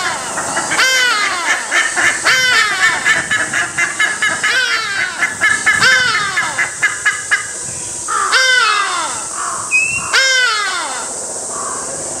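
Hadada ibis calling loudly and over and over, each call dropping in pitch, with black-faced ibises joining in. Their calls make a rapid, dense run in the middle.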